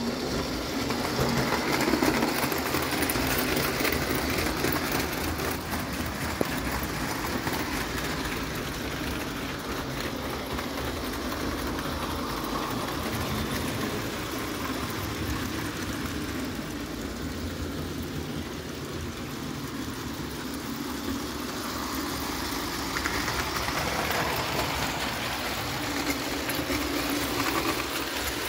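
Märklin CS 65/13020 0-gauge tinplate electric locomotive running along tinplate track with its coaches: a steady whirr of the motor and rumble of wheels on the rails, growing louder and fainter as the train moves along.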